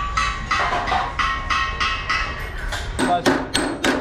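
A small hammer striking a metal radiator header plate in regular ringing taps, about two a second. From about three seconds in come quicker taps, about four a second, as the header plate is hammered down along the top of the copper radiator core.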